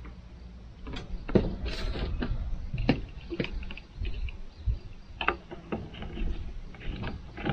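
Plastic handling noises: a half-gallon hand-pump garden sprayer's pump head fitted into its bottle and screwed down, with the jug set on the table. The result is a string of irregular clicks and knocks.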